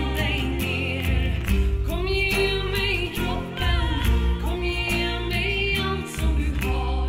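Music: a woman singing held, wavering notes over acoustic guitar, bass and light percussion.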